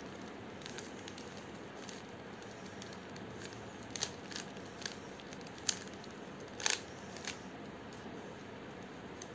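A 3x3 speed cube's plastic layers being twisted quickly by hand, with a run of light clicks and clacks. Sharper snaps come several times in the middle.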